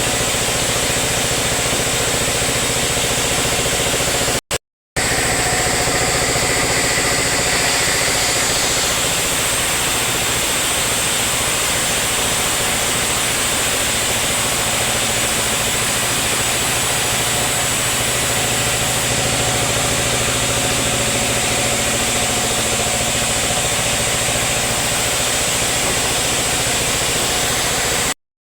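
Sawmill machinery running steadily with a dense mechanical drone, broken by two short silences, one about four and a half seconds in and one near the end.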